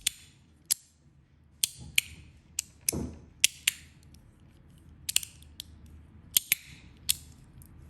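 Zirconium and brass fidget slider being worked back and forth, giving a dozen or so sharp metallic clicks at irregular intervals, some followed by a brief scraping slide.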